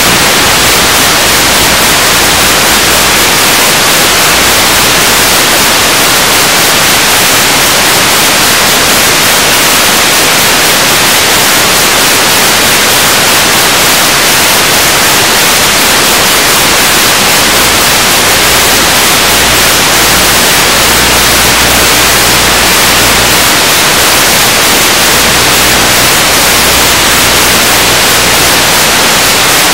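Loud, steady static hiss with no other sound in it, the white noise of an empty audio channel on an analog wireless video receiver.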